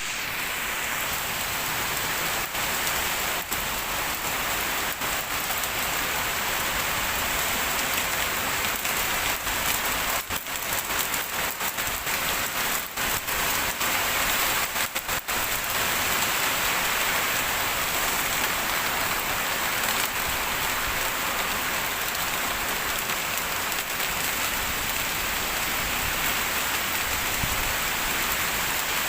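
Heavy rain falling steadily, a dense even hiss of drops on a surface.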